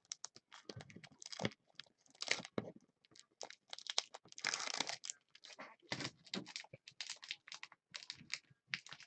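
Typing on a computer keyboard: an irregular clatter of quick key clicks with short pauses between them.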